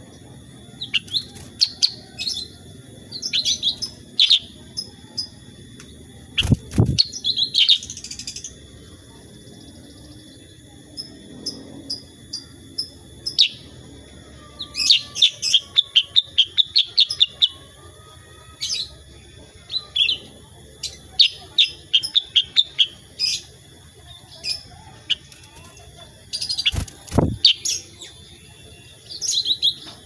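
Black-headed bulbul (kutilang sutra) singing: scattered sharp chirps and quick rattling runs of notes. Two brief dull thumps come, one about six seconds in and one near the end.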